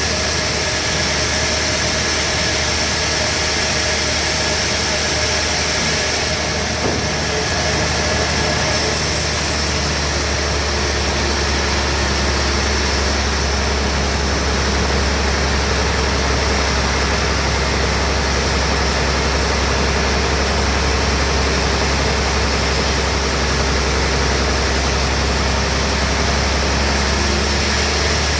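Bandsaw sawmill running steadily while sawing trembesi (rain tree) wood: a continuous loud machine noise over a deep, even drone.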